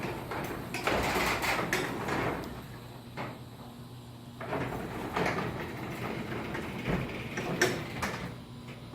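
Sectional garage door being moved by hand along its tracks, the rollers rumbling with scattered clicks and clanks, pausing briefly around three seconds in and then moving again. This is a balance check after adjusting the torsion springs.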